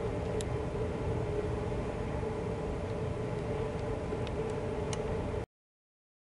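Steady rumbling noise with a low hum and a few faint ticks. It cuts off abruptly about five seconds in, leaving dead silence.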